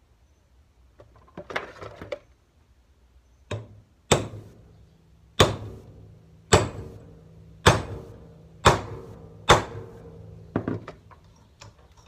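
Hammer striking a hammer-type crimping tool held in a bench vise, crimping a lug onto heavy-gauge battery cable. A light knock, then six hard blows about a second apart, each leaving a short metallic ring, after some clattering as the tool is set in place.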